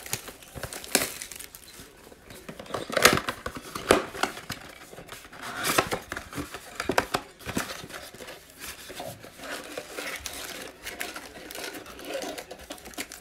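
The packaging of a 2019-20 Panini Illusions basketball mega box being torn and opened by hand: irregular crinkling, crackling and tearing of wrap and cardboard, with the sharpest tears about three and four seconds in.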